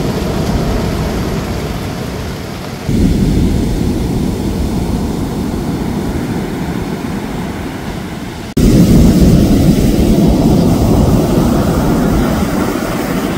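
Heavy surf breaking on the beach: a loud, steady, low rumble of big waves, stepping up abruptly twice, about three and eight and a half seconds in.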